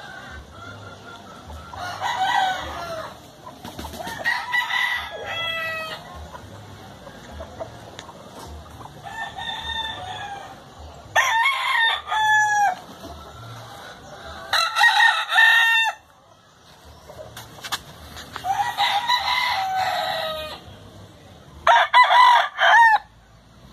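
Gamecock roosters crowing repeatedly, about seven crows in turn, some loud and close and others fainter and farther off. The loudest crows come about halfway through and near the end.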